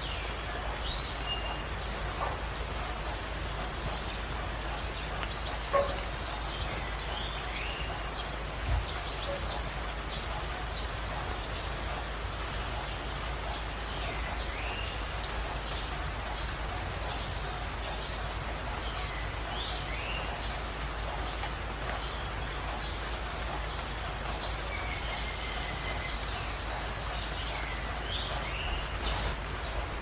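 Water cascading over rocks in a small waterfall, a steady rushing, with songbirds singing over it: a short, high, rapid trill that comes back every few seconds, and scattered chirps and whistles between.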